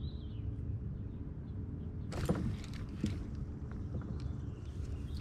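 Rod and reel handling noise in a kayak as a bite is worked: a few short knocks and rustles about two and three seconds in, over a steady low rumble.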